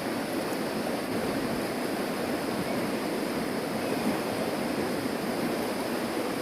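Steady rush of a swollen, fast-flowing river.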